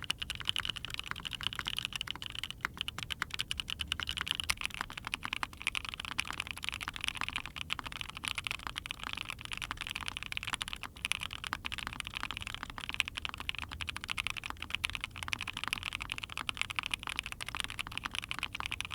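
Continuous fast typing on mechanical keyboards fitted with hand-lubed SP-Star Ube Crinkle long pole linear switches: a steady stream of sharp, fairly high-pitched clacks. About four seconds in, the typing moves from a Sana TKL with a polypropylene plate to an ai03 Vega with a POM plate.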